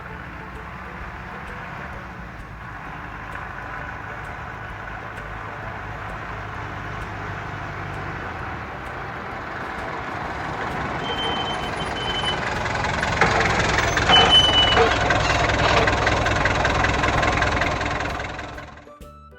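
A motor vehicle's engine running and gradually growing louder, with two brief high squeals in the second half, then cutting off just before the end.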